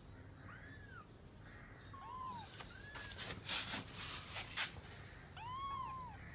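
Small kittens mewing in short, high cries that rise and fall, repeated, with several overlapping near the end. A burst of loud rustling and scuffing noise comes in the middle.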